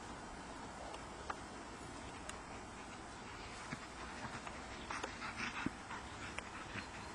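A dog makes a quick run of short vocal sounds about five seconds in, over a steady outdoor hiss, with a single sharp click a little over a second in.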